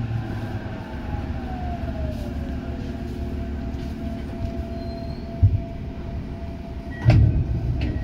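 Tokyo Metro 8000 series subway train running, with low wheel-on-rail rumble. A whine falls in pitch over the first three seconds, then holds as a steady hum. Heavy thumps come about five and a half and seven seconds in, with sharp clicks near the end.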